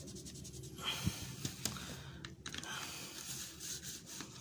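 Coloured pencil rubbing and scratching lightly on paper, with a few soft knocks and clicks.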